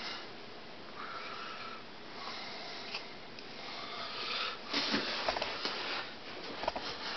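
A person breathing in and out, a breath about every one to two seconds, with a few soft knocks and rustles of movement in the last two seconds.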